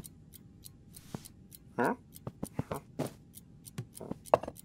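Cartoon foley: a string of soft, irregular clicks and taps as a cat clambers over a bed toward a bedside table, with one short vocal sound that rises in pitch a little under two seconds in.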